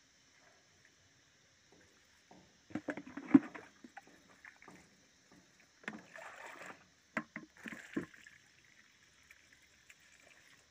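Irregular clunks and knocks of a plastic mug against a plastic bucket, with water sloshing, as water is scooped up for watering seedlings; the loudest knocks come about three seconds in.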